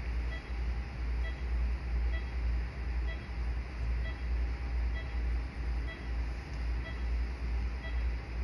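Operating-room patient monitor beeping with the heartbeat: short, same-pitched beeps a little faster than once a second, over a loud, steady low rumble of operating-room equipment.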